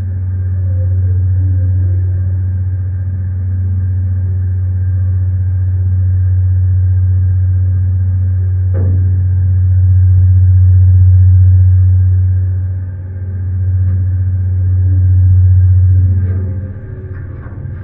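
Steady low rumble of a ship's engine, with faint steady tones above it, swelling and easing in loudness. It drops away shortly before the end, where a few light knocks follow.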